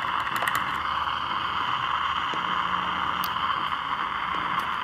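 Steady static hiss from a signal tracer's speaker as its probe is held on a transistor radio's audio output stage, with no station signal coming through. A few faint clicks come from the probe tip touching the circuit, and a faint low hum comes in about halfway through.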